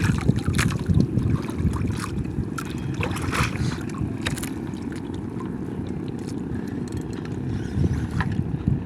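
Steady low wind rumble on the microphone aboard a small fishing boat on the water, with scattered sharp knocks and splashes in the first few seconds.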